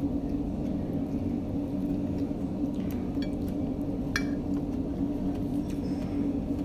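A steady low hum, with a few light clicks about three seconds in and one sharp clink of a metal fork against a china plate about four seconds in.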